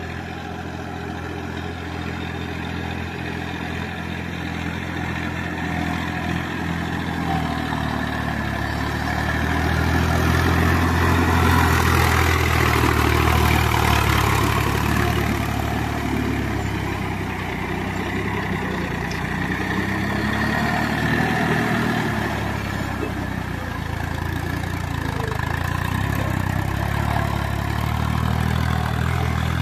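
Massey Ferguson 245 DI tractor's three-cylinder diesel engine running steadily under load while its cage wheels churn through a flooded paddy field. About ten seconds in, the engine grows louder as the tractor comes close, with a wash of splashing mud and water over the engine note. It eases off again after a few seconds.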